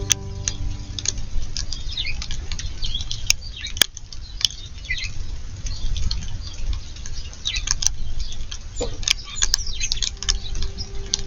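Small backyard birds chirping in short, high, downward calls, with scattered sharp clicks and taps and a low rumble underneath. The chirps come thickest around the middle and again near the end.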